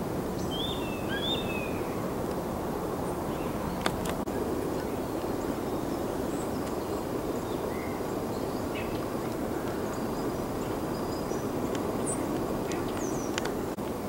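Steady low rushing background noise with a few short, thin bird chirps: two falling chirps in the first second or so, and a few higher ones near the end. A single sharp click comes about four seconds in.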